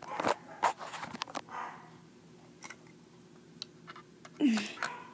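Small plastic clicks and knocks as Lego pieces and a minifigure are handled, with breathy noises and a short falling vocal sound about four and a half seconds in.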